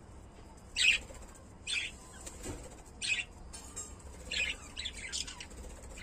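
Lovebirds giving short, harsh chirps, about six in all, with three coming in quick succession near the end.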